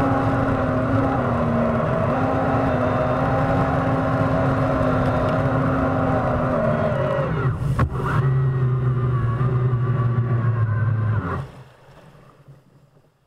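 Electric jet drive of a homemade jet kayak running with a steady whine over rushing water. About seven and a half seconds in there is a knock and the pitch drops to a lower hum. The drive cuts off suddenly about eleven seconds in.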